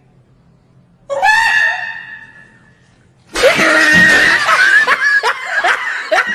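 A man's high-pitched shrieking laughter: a short squeal about a second in, then a long loud screaming laugh from about three seconds in that breaks into short yelps near the end.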